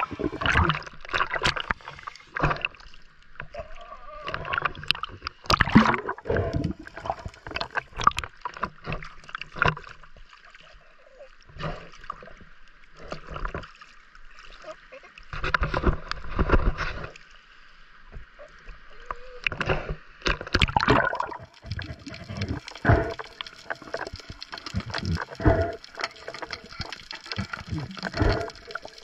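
Sea water sloshing and splashing against the camera as it moves between underwater and the choppy surface, coming in uneven surges.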